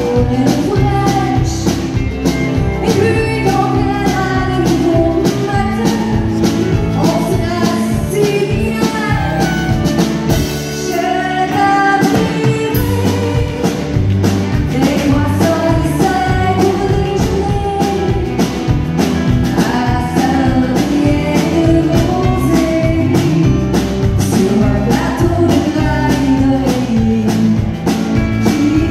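Live country band: a woman singing into a microphone over a drum kit and keyboard, with a steady beat.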